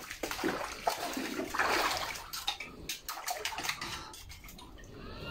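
Shallow muddy water sloshing and splashing around a person wading and poking a thin metal hook among submerged stones, with a few sharp clicks about halfway through; it quietens near the end.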